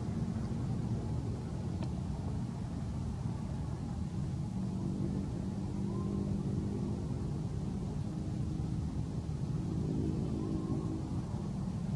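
Steady low rumble of a motor vehicle engine running, its pitch drifting a little.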